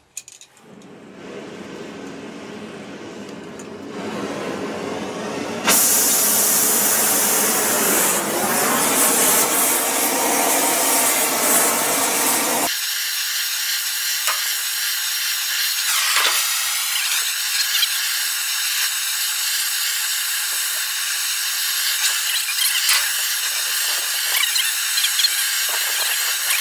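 Gas torch flame hissing steadily as it heats the steel sideboard of a scraper bucket so the sideboard can be bent back into line. It grows louder over the first few seconds, and about halfway the low rumble drops away, leaving a high hiss.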